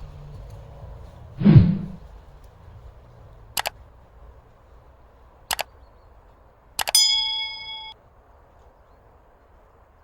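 A dull thump, then three sharp metallic clicks about two seconds apart, the last one ringing on for about a second like struck thin metal.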